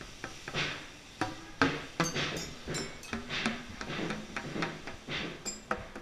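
Tuned pipe instrument, the open tops of upright tubes struck with a paddle mallet: an irregular run of sharp hits, about two to three a second, each giving a short pitched note at a different pitch.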